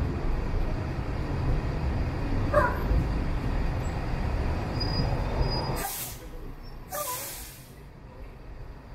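Mercedes-Benz diesel city bus pulling into a stop: engine rumble as it slows, with a short squeal about two and a half seconds in, then two sharp air-brake hisses about a second apart as it halts, after which the engine noise falls away.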